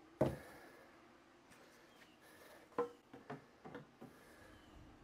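A sharp knock about a quarter second in, then a few lighter knocks and clicks around three to four seconds in: tools and wood pieces being handled and set down on a workbench.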